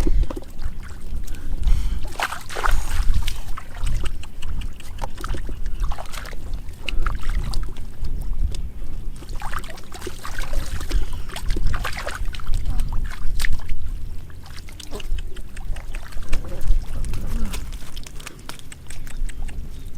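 Shallow muddy water splashing and sloshing irregularly as hands grab for fish in a flooded rice field, with scattered sharp splashes and low, uneven thuds.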